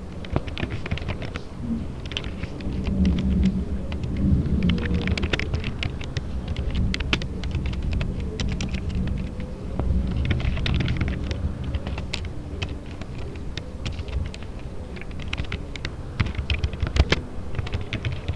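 Typing on a computer keyboard: irregular keystrokes in bursts with short pauses, over a low rumble.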